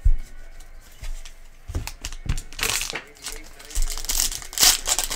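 Foil wrapper of a trading-card pack crinkling and tearing as it is ripped open by hand, in several sharp bursts in the second half. A few light knocks from cards being handled come before it.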